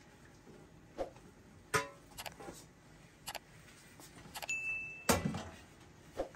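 Metal cookware clanking and knocking as a metal serving tray is laid over a rice pot and the pot is flipped upside down onto it and set back on the stove: several sharp knocks, one early with a brief metallic ring, the loudest a heavy thud about five seconds in.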